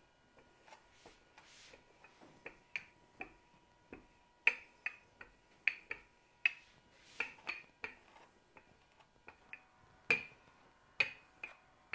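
Wooden rolling pin rolling out pie dough on a floured pastry cloth: a run of short, sharp clicks and knocks, about two a second at an uneven pace, as the pin is pushed back and forth.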